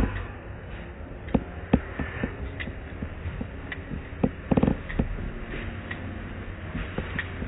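Footsteps on a hard floor, roughly two a second with a louder cluster about four and a half seconds in, over a steady low rumble of car wash machinery.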